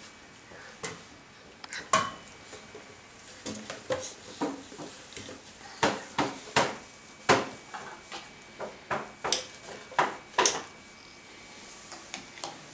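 Irregular sharp taps and knocks, a few much louder than the rest, from a toddler moving about on a moulded plastic chair.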